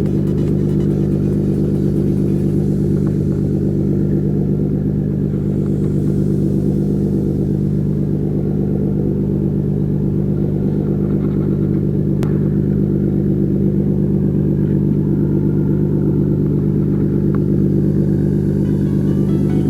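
An engine running steadily at constant speed, a low even hum that does not change.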